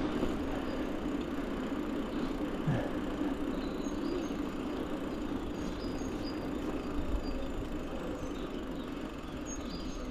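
Mountain bike rolling along on knobby Maxxis XC race tyres: a steady hum from the tyres over an even rushing noise.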